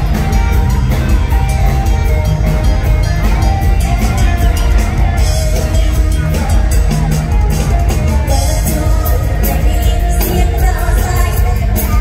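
Live band playing upbeat Isan lam sing dance music through a loud PA, with a steady driving beat.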